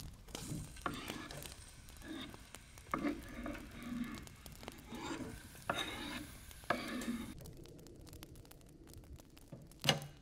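Chopped onion scraped off a wooden board with a knife into a hot oiled frying pan, sizzling in the oil, with irregular scrapes and taps of the knife against the board and pan. A single sharp knock near the end.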